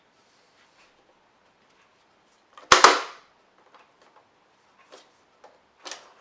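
A loud, sharp double snap about three seconds in, then a few fainter clicks and knocks: parts of a Hoover Senior upright vacuum cleaner being handled and clipped together while a new drive belt is fitted.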